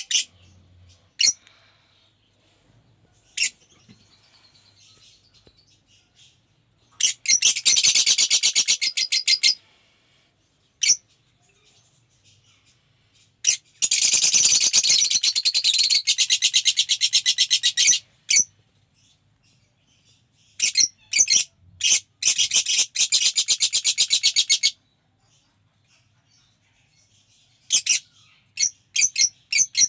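Lovebird chicks chirping in shrill, rapid trains of calls. There are three long runs of a few seconds each, with single sharp chirps between them.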